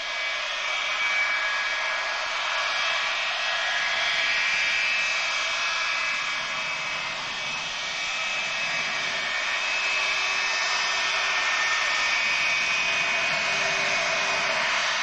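Boeing 707's four Pratt & Whitney JT3D turbofans running at low taxi power: a steady high-pitched whine over a rushing noise. A lower hum grows stronger from about nine seconds in as the jet swings round nose-on.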